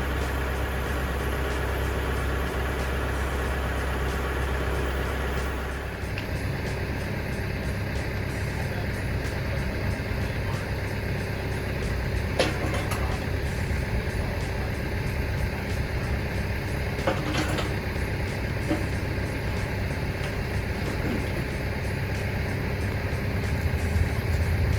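Truck engine running. A steady hum for about the first six seconds changes to a rougher low rumble with road-like noise, and two short clicks come through around the middle.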